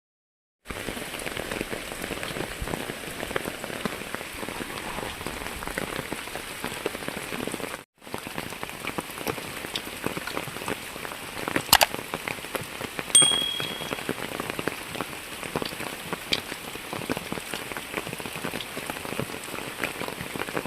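Rain falling, a dense steady pattering of drops, with one sharp click about twelve seconds in and a brief high chirp just after.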